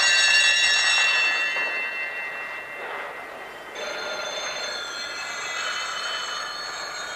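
Telephone bells ringing: one ring fades out about three seconds in, and another starts about a second later.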